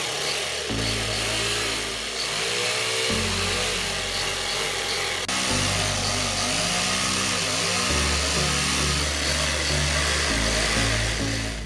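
Electric jigsaw cutting through a wooden board, a steady saw noise that holds throughout, with background music underneath.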